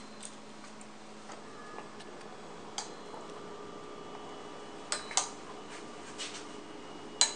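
Scattered light clicks and taps of small plastic toy makeup pieces being handled and dabbed, about eight over several seconds with a louder pair about five seconds in, over a faint steady hum.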